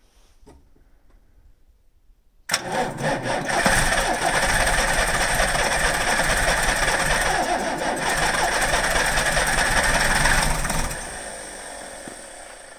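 Saurer Berna 2DM truck's diesel engine being cranked over on a cold start after six months standing. It comes in suddenly about two and a half seconds in, holds loud and steady for about eight seconds, then dies away gradually.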